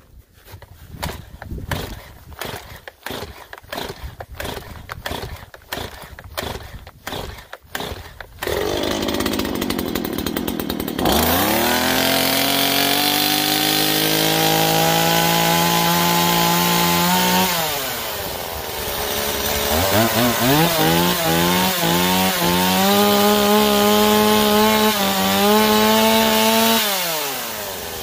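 Stihl MS 170 two-stroke chainsaw cold-started on choke after three months unused: the starter cord is pulled over and over for about eight seconds before the engine catches and runs. It is then revved up twice, each time held high for several seconds before dropping back.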